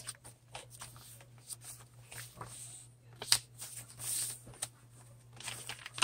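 Paper handling: soft rustles and light taps as thick handmade journal pages are turned and cards are slid out of a pocket. There is one sharper click a little past three seconds in and a brief louder rustle about a second later.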